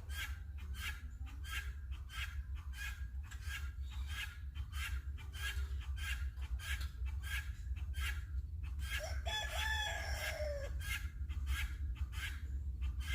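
Chickens clucking in quick, short repeated calls, with a rooster crowing once about nine seconds in, over a steady low rumble.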